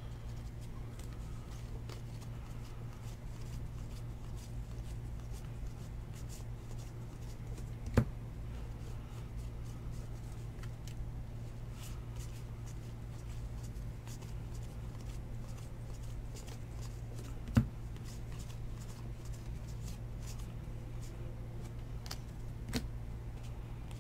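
2019 Topps baseball cards being flipped through one by one in the hands: faint card-on-card sliding with light ticks over a steady low hum. Two sharp clicks stand out, about eight seconds in and again near seventeen seconds.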